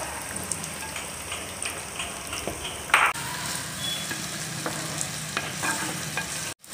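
Aromatics frying in hot mustard oil in a clay pot, a steady sizzle with small crackles, while a wooden spatula stirs and scrapes them. A short loud burst about three seconds in, and the sound cuts out briefly near the end.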